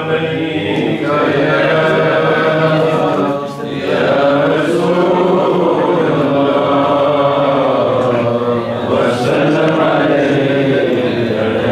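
Male voices chanting a devotional Islamic chant, continuous and melodic, with a brief dip about three and a half seconds in.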